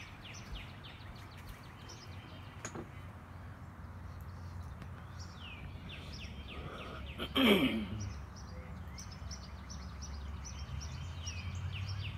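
Outdoor birdsong: a small bird repeating quick, downward-slurred chirps in runs of several a second, over a steady low hum of background noise. About seven and a half seconds in, a louder call slides steeply down in pitch.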